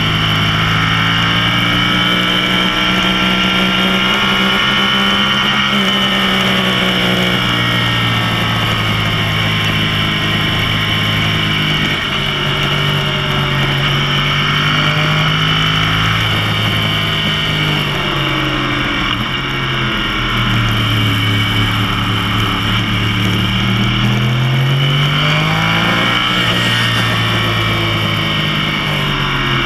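Yamaha R1's crossplane-crank inline-four engine at speed on track, its pitch climbing and falling again and again as it accelerates and slows for corners, with a sharp drop and climb near the end. Steady wind rush runs underneath.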